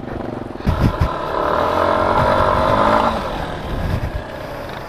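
Small off-road engine running under throttle over rough grassy ground, with a couple of low bumps about a second in. The engine note holds steady, then falls away after about three seconds into a rumble of wind and ground noise.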